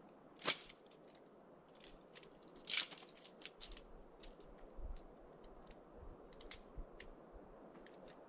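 Faint rustling and scattered clicks of tent and camp gear being handled, with two louder brief swishes, about half a second in and again near three seconds.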